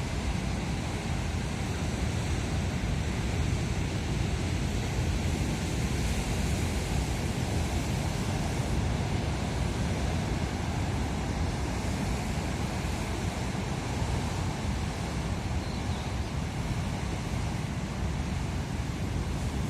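Sea waves washing onto the shore in a steady, unbroken rush, mixed with wind rumbling on the microphone.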